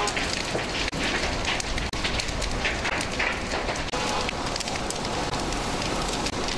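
A large building fire burning, with a dense, continuous crackling over a steady rushing noise; the sound drops out very briefly a few times.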